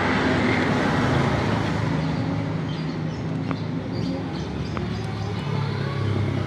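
Steady background engine and traffic noise, a low hum that wavers in pitch, with a few light clicks.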